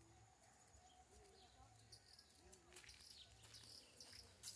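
Near silence: faint outdoor ambience with distant birds calling, a few short high chirps about three seconds in and again at the end.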